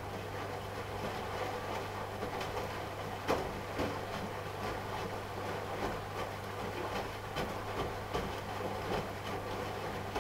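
AEG Lavamat L88489FL washing machine drum turning during the rinse, with laundry and water tumbling inside and irregular soft knocks. It runs over a steady low hum and stops just after the end.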